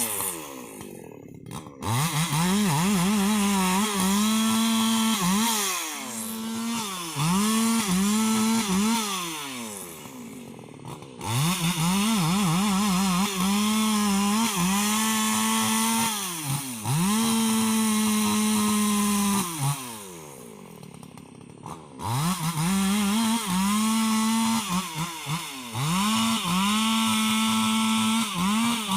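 Husqvarna 288 XP two-stroke chainsaw held at full throttle while cutting rubber wood. It falls back to idle between cuts and revs up again several times.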